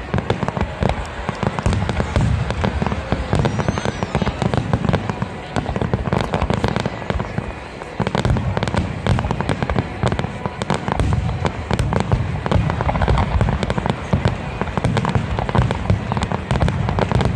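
Fireworks display barrage: shells bursting in a rapid, continuous stream of booms and crackles, with a brief lull about eight seconds in.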